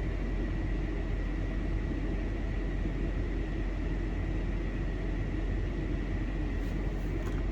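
Minivan's cabin blower fan running steadily on a high setting, a constant rushing noise with a low rumble and a faint high whine.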